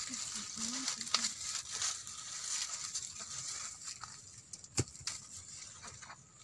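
Dry maize husks and leaves crackling and rustling as ripe ears of corn are snapped off the dried stalks by hand, with a few sharp snaps, the loudest nearly five seconds in.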